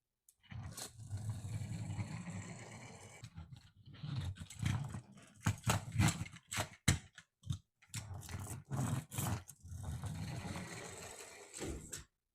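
Diecast toy trucks handled and run across a surface: stretches of grinding, whirring rolling noise from the wheels and pull-back motors, broken by sharp clicks and knocks.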